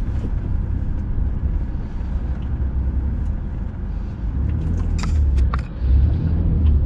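Off-road vehicle moving slowly over a rough dirt trail: a steady low rumble, with a few sharp knocks about five seconds in.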